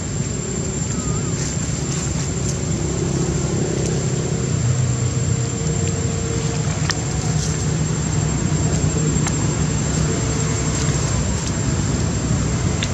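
Steady low rumble of motor-vehicle engine noise, rising and falling slowly in pitch, with a constant high-pitched whine over it.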